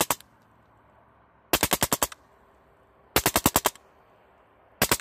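Baikal MP-661K Drozd electronic BB machine gun, fed by regulated air from a tank, firing steel BBs in rapid bursts of about six or seven sharp shots each. One burst is trailing off as it begins, two full bursts come about one and a half and three seconds in, and another starts at the very end.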